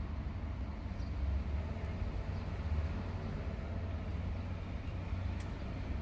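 Steady low rumble of outdoor urban background noise, with no distinct events.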